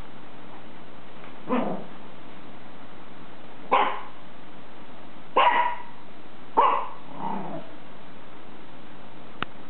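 Small dogs barking during rough play: about four short, sharp yaps a second or two apart, then a fainter one. A single brief click comes near the end.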